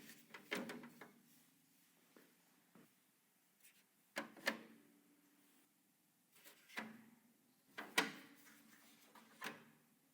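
Sharp clicks and knocks of PC case parts and components being handled and set in place, each with a brief ringing tail, coming a second or more apart.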